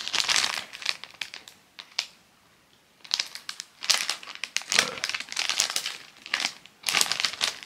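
Plastic wrapper of an instant-ramen packet crinkling as it is handled and shaken, in clusters of crackles, with about a second of near silence some two seconds in.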